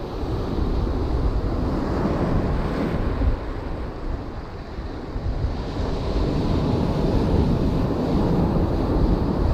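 Ocean surf breaking and washing in over the rocks at the waterline, with wind buffeting the microphone. The wash eases for a couple of seconds midway, then builds again.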